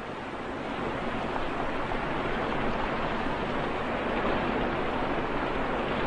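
Heavy rain falling, a steady hiss that slowly grows louder.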